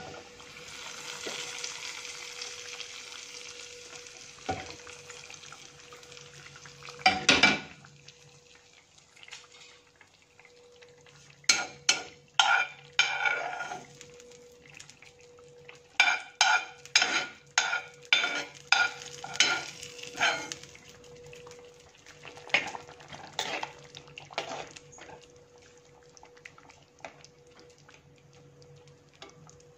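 A tempering of onions and curry leaves fried in hot oil sizzles as it is poured into a clay pot of chicken curry, the hiss fading over a few seconds. Then come a loud clatter and a long run of quick knocks and scrapes as a metal spoon scrapes the frying pan out into the pot, with fainter clicks of stirring near the end over a faint steady hum.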